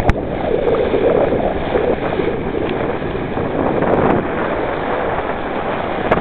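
Steady rush of wind buffeting the microphone, mixed with water rushing and splashing along the hull of a Laser dinghy sailing in a fresh breeze.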